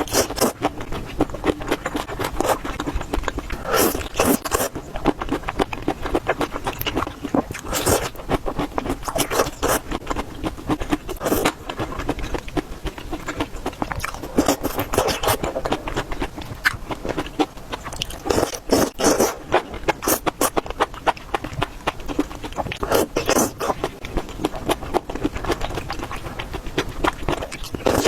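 Eating sounds: a dense run of short crunches and scrapes, with louder clusters every few seconds.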